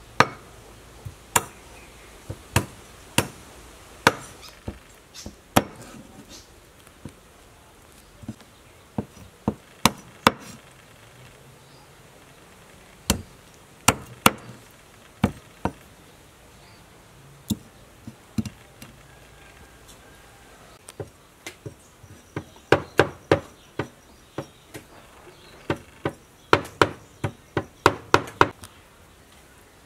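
Meat cleaver chopping small soldier fish on a wooden cutting board, with sharp separate blows. The chops come singly and irregularly at first, then in quick runs about three-quarters of the way through and again near the end.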